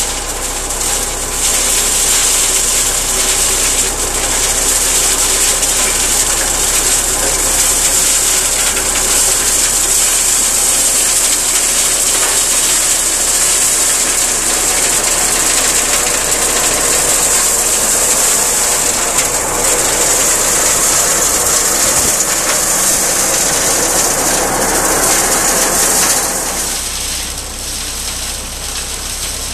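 Tractor-mounted Teagle Dyna Cut 400 flail hedge cutter running at full speed, its flails thrashing and mulching brambles, over the Zetor 5545 tractor's diesel engine. The noise drops noticeably about 26 seconds in.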